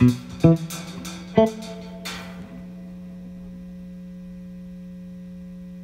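Jazz guitar and drums playing the closing notes of a tune: a few plucked guitar notes with sharp drum hits in the first two seconds and a cymbal wash that fades out. From about two and a half seconds in, one guitar note or chord is held and rings on steadily at an even level.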